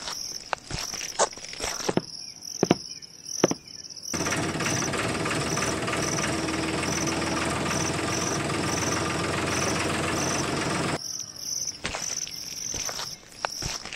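Insects chirping in a high pulse about three times a second, with scattered clicks. From about four seconds in to about eleven seconds in, a louder, steady, even noise covers the chirping, then cuts off.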